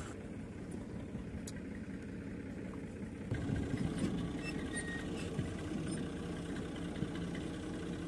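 Massey Ferguson 240 tractor's three-cylinder diesel engine running hard under heavy load as it strains to drag a trolley stuck in deep mud, the front wheels lifting off the ground. It gets louder about three seconds in, then holds steady.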